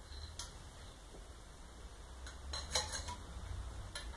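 A few light metallic clinks and taps from the metal parts of a motorcycle front fork being handled during reassembly, with a quick cluster of them, the loudest, about two and a half to three seconds in.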